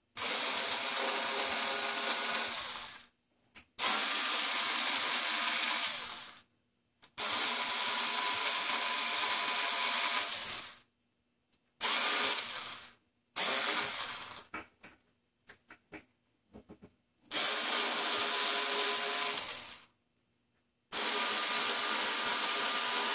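Power drill running in seven bursts of two to four seconds, starting and stopping abruptly, as it backs out the screws of a grand piano lid's long hinge; one run breaks into short stuttering pulses before it stops.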